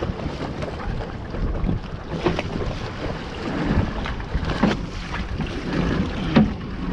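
Wind buffeting the microphone over a steady low rumble on open sea, with water sloshing around a small wooden boat and a few sharp knocks about two, four and a half, and six seconds in.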